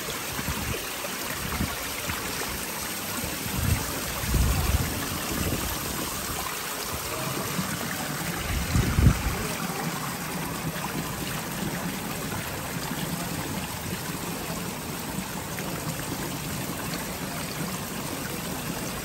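Small fountain jets bubbling up through a shallow pool, a steady splashing and trickle of water. A few soft low bumps come about four seconds in and again about nine seconds in.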